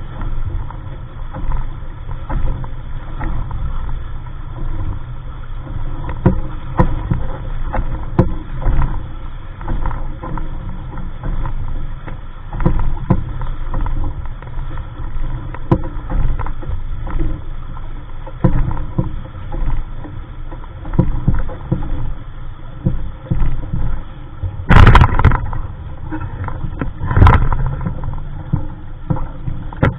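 Water sloshing and slapping against the hull of a small sailboat under way, with wind rumbling on the microphone. Two louder knocks or splashes come about 25 and 27 seconds in.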